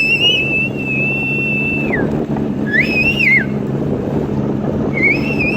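A boat's motor running steadily, with three high, wavering whistles over it: one held about two seconds at the start, a short one about three seconds in, and another near the end.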